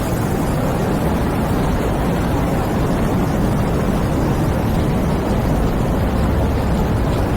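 Steady rain falling: a dense, even patter of raindrops, heaviest in the low end.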